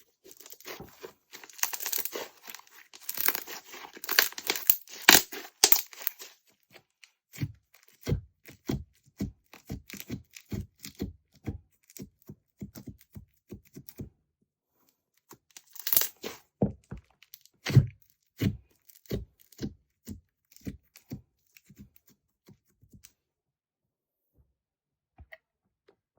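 Slime being played with by hand: a dense run of crackly, crunching sounds for about the first six seconds, then a string of separate short pops and clicks. The pops pause briefly midway and stop a few seconds before the end.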